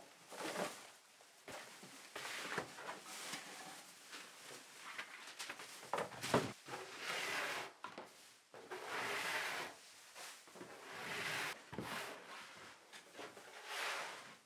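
Plastic shovel and dustpan scraping and sweeping rubbish and dirt across a wooden floor, in repeated swishes about a second long, with rustling litter. A sharp knock about six seconds in.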